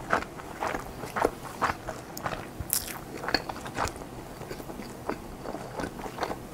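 Close-miked chewing: wet mouth clicks and smacks about twice a second, with one sharper crisp sound a little under three seconds in.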